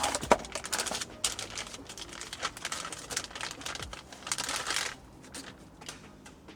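Hand-handling clatter of small plastic parts and wiring: a quick run of light clicks and rattles, with a rustling crinkle about four and a half seconds in, then much quieter for the last second and a half.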